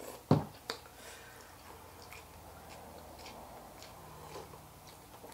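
Noodles being slurped and hot broth sipped from a bowl, faint and wet, with a sharp knock about a third of a second in and a softer one just after.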